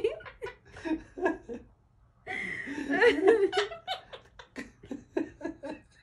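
A man laughing in a string of short bursts, with a louder, longer laugh about two seconds in.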